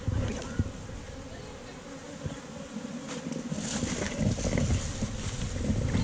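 Honey bees from a wild colony in a tree hollow buzzing steadily, with a few faint knocks.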